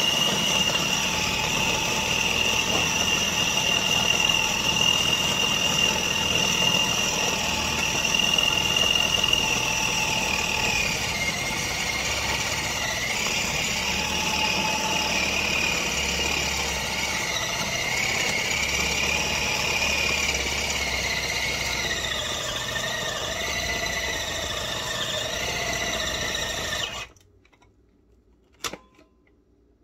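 Food processor motor running at full speed with a high, steady whine while it mixes vital wheat gluten into a lentil paste. From about halfway through, the whine drops in pitch and wavers as the seitan dough thickens and loads the blade. It switches off suddenly near the end, followed by a couple of faint clicks.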